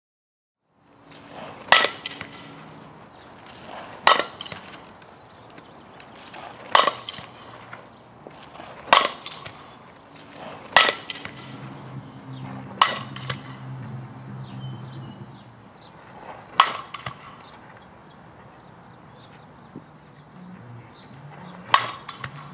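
Softball bat hitting tossed balls in batting practice: eight sharp cracks about two seconds apart, with two longer pauses in the second half. A faint low hum runs underneath.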